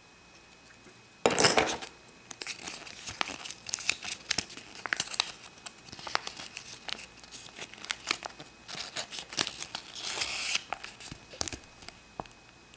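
Folded paper leaflet being unfolded and handled, crinkling and crackling. It starts with a sudden loud rustle about a second in and goes on as irregular rustling with sharp crackles.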